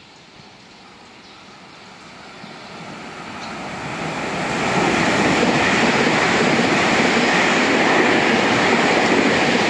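Taiwan Railway train approaching at high speed and rushing past. Its rumble swells steadily over about five seconds, then stays loud.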